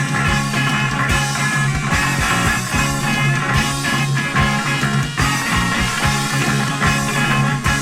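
Instrumental post-punk rock passage between sung verses: a steady drum beat with a pulsing bass line and guitar.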